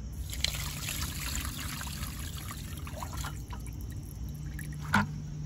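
Rusty, iron-laden water from a water heater flush poured out of a plastic bucket onto pavement, splashing and trickling for about three seconds before tailing off. A short thump near the end.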